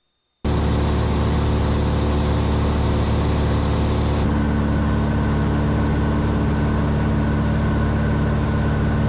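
Cessna 182's six-cylinder piston engine and propeller droning steadily in cruise, with the mixture leaned to the lean side of peak EGT. The drone starts suddenly about half a second in, and its hiss turns a little duller about four seconds in.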